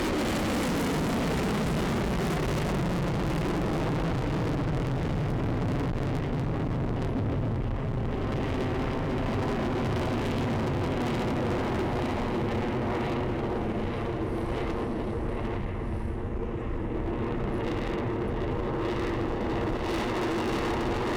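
F-35A's single Pratt & Whitney F135 afterburning turbofan jet running loud through a pass. Its pitch falls steeply in the first couple of seconds as it goes by, then a steady jet roar dips a little midway and builds again near the end.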